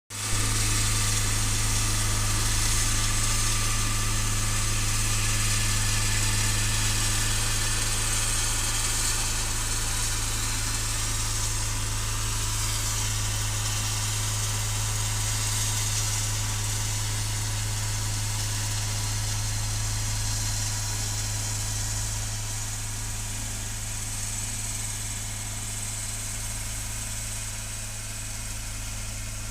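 Old road roller's engine running steadily with a deep, even hum, easing slightly toward the end.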